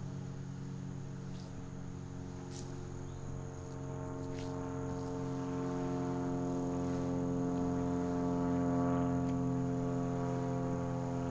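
Crickets singing in a steady high buzz over a low, steady hum of several held tones that grows louder about four seconds in.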